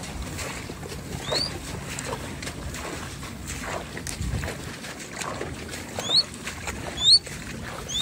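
A bird's short, rising whistled call, repeated: once about a second and a half in, then three times close together near the end, the last ones loudest. Under the calls is the soft swish of footsteps through tall grass and lotus leaves.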